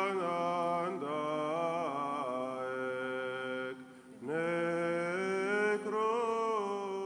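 Unaccompanied vocal chant: a voice holds long notes and slides between them over a steady lower note, with a brief break about four seconds in.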